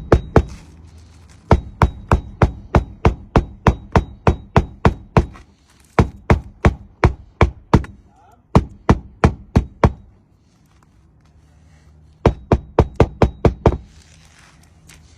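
Hand hammer driving roofing nails through an asphalt shingle into the roof: quick runs of sharp blows, about four or five a second, in several bursts with short pauses between them.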